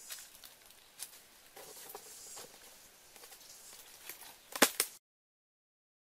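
Bare feet moving on dry leaf litter: soft rustles and scattered clicks, then a sharp double click near the end, after which the sound cuts off abruptly.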